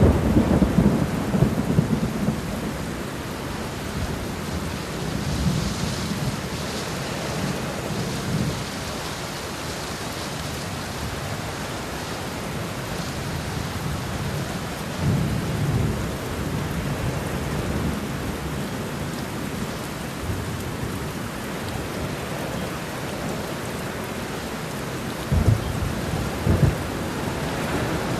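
Steady rain with thunder: low rumbles near the start and about halfway, and two sharper low claps near the end.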